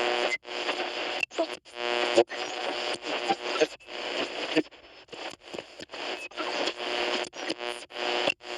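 AM radio being tuned across the dial: static hiss and whistling tones, with brief snatches of stations, that break off abruptly again and again as the dial moves. There is a quieter dip about five seconds in.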